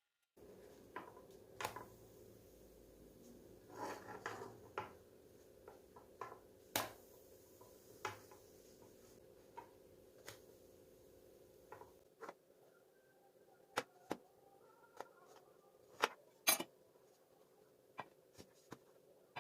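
Scattered clicks and knocks of kitchen utensils and dishes being handled, over a steady low hum.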